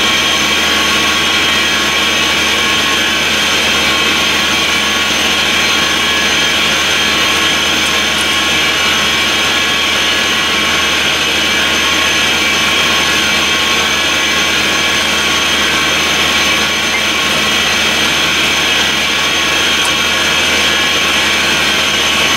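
A portable air compressor and air receiver running steadily: a loud, constant hiss with several high steady tones over it.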